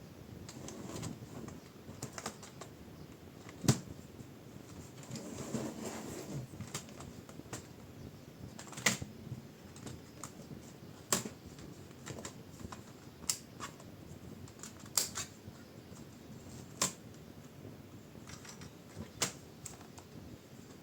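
Sharp plastic clicks and snaps, irregular and roughly every two seconds, with rubbing and scraping in between, as the plastic bottom casing of a Lenovo S20-30 laptop is pried open and its clips let go.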